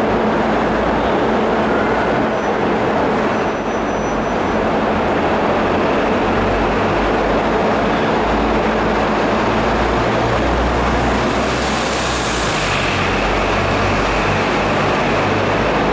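Steady background din of a crowded airport arrival hall, an even wash of noise with a low rumble and no clear voices.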